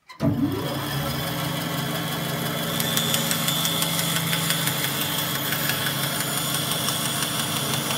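Woodworking bandsaw running with a steady motor hum that comes in suddenly. From about three seconds in, its blade cuts through a small board of timber, adding a fast crackle and hiss.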